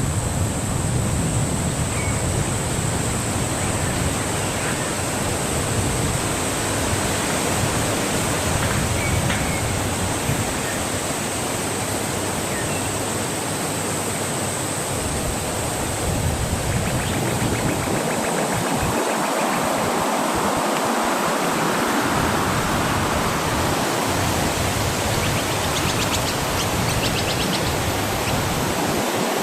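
Wind blowing steadily, a constant rushing noise, with a low rumble of wind on the microphone that eases about halfway through.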